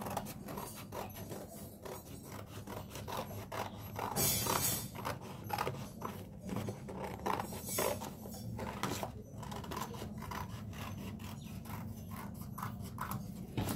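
Scissors cutting through paper in a run of irregular snips, with the sheet rustling as it is lifted and turned, loudest about four seconds in.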